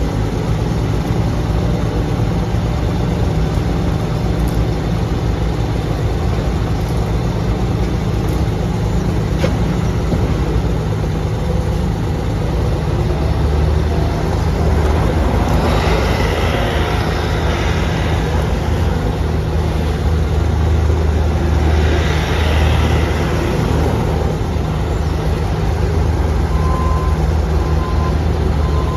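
Bobcat S64 skid steer loader's 68 hp Doosan diesel engine running steadily. About halfway through it grows louder for a few seconds, with a hiss on top, and it does so again a few seconds later.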